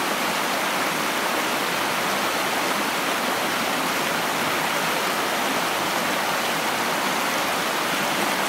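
Stream water rushing, a steady even hiss.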